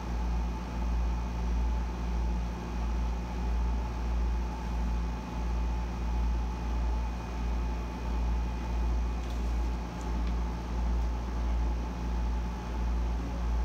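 Room air conditioner running on full, a steady low droning hum that swells and fades a little over once a second, with a faint steady whine above it. A couple of faint clicks come late on.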